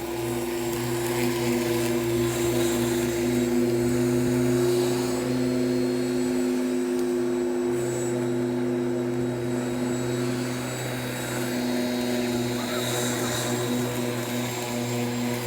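Ryobi 1300 W electric lawn mower running steadily, its motor giving a constant hum.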